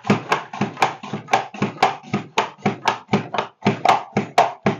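Pampered Chef Rapid Prep Mandoline worked rapidly by its handle, cutting a potato into French fries: a fast, even run of sharp clacks, about four a second.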